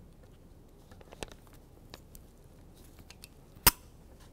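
Small clicks and ticks of wires and a freshly crimped spade connector being handled on a table, with one sharp click a little before the end.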